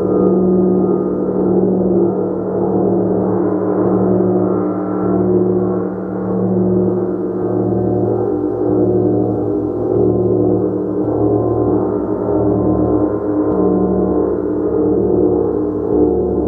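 Gong played continuously: a sustained wash of many overlapping ringing tones that swells and ebbs, with no separate strikes standing out.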